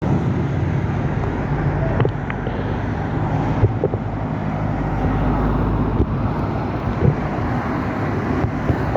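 Steady road-traffic noise: a continuous low rumble of vehicles with wind on the microphone and a few light clicks.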